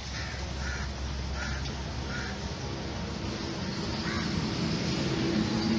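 A bird calling several times in short calls, over a steady low hum that grows louder near the end.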